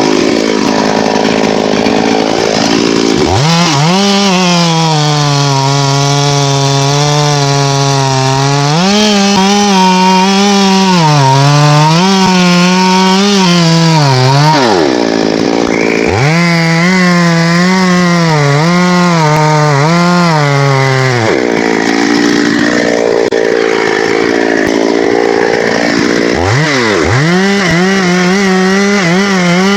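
Chainsaw running at high revs while cutting wood. Its engine note sags and recovers every few seconds as it is loaded in the cut and eased off.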